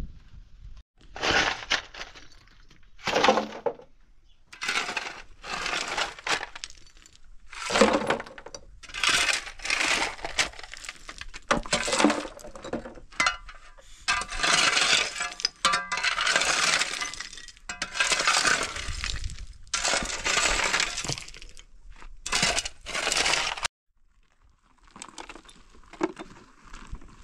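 Repeated bursts of cracking, crunching noise, each lasting up to a few seconds with short gaps between, as of something being broken or crushed. They stop abruptly about three seconds before the end, leaving a fainter sound.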